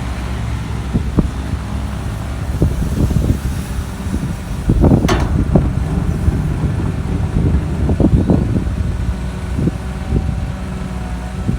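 Heavy diesel earthmoving machinery running steadily at a soil-loading site. Irregular knocks and thuds come over the engine, with one sharp crack about five seconds in.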